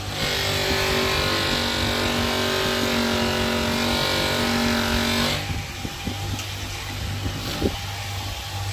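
Small steel blade pressed against the spinning wheel of a bench grinder, giving a steady, high pitched whine; a little over five seconds in the blade is lifted away and only the low hum of the grinder's motor remains.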